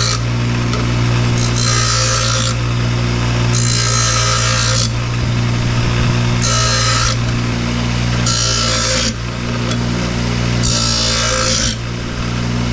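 Electric grinder running steadily while the corners of 1/8 inch steel brace plates are ground, the grinding hiss coming and going in repeated passes about every two seconds.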